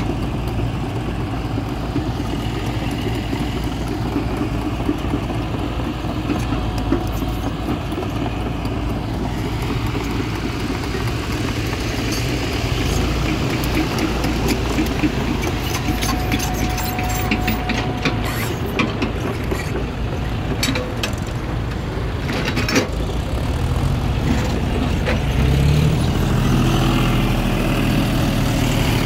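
Heavy diesel engines of an excavator and a John Deere tractor running, a steady low rumble, with scattered knocks and rattles in the middle. Near the end the tractor's engine revs up, its pitch rising.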